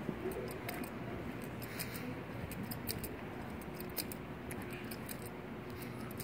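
Shopping mall ambience: a steady low background noise with many light, irregular ticks, about three a second.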